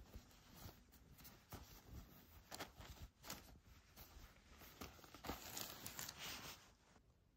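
Soft, irregular rustling and crinkling of a plastic shopping bag as two shearling hats are handled on it, dying away shortly before the end.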